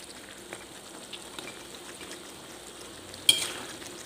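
A spatula stirring chicken and vegetables in curry sauce in a wok, with soft frying and small scrapes. Just after three seconds in, the spatula scrapes hard against the wok, the loudest sound, with a brief metallic ring.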